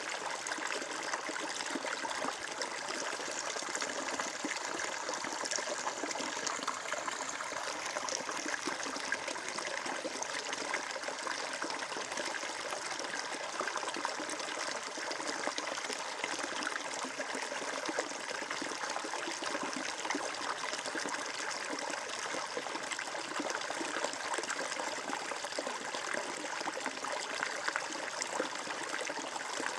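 Water flowing and trickling steadily, a continuous splashing babble of a stream.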